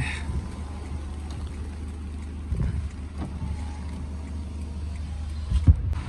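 Inside a car in heavy rain: the engine runs with a steady low rumble under an even hiss of rain on the glass and bodywork. A single knock comes near the end.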